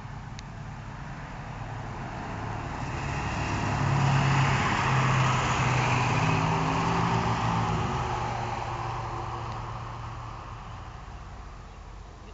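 A road vehicle driving past: engine hum and tyre noise swell, are loudest about four to seven seconds in, then fade away.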